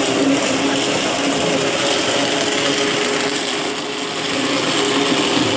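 Commercial immersion blender running steadily in a pot of lobster bisque, a constant motor hum over the churning soup, easing slightly about four seconds in.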